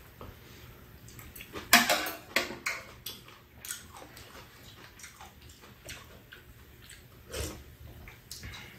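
Metal spoons clinking and scraping against bowls during a meal, heard as scattered short clicks, with a few soft sips of soup.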